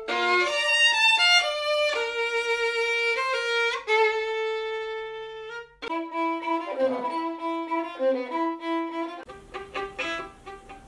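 Solo violin playing, bowed, in separate clips spliced together. There are abrupt changes about six and nine seconds in, and the last clip is quieter.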